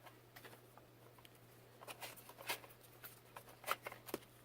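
Foam darts being pushed one at a time into a clear plastic off-brand Nerf magazine against its follower spring: a few quiet, irregular plastic clicks, mostly in the second half.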